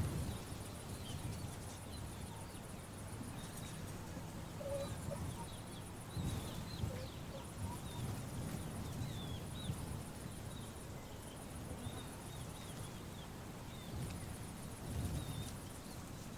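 Background ambience of birds chirping in short, scattered calls, with a high, rapidly pulsing insect buzz that starts and stops every second or two, over a low rumble.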